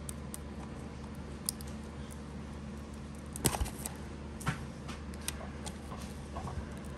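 Hands handling a cardboard booster box and card packs: scattered light clicks and taps, with a small cluster about three and a half seconds in, over a low steady hum.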